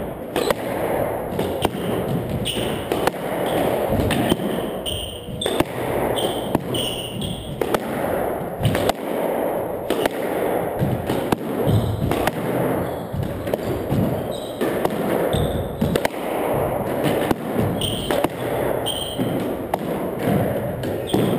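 Squash rally: the hard rubber ball cracking off racquets, walls and floor at irregular intervals, with sneakers squeaking and footsteps on the hardwood court floor.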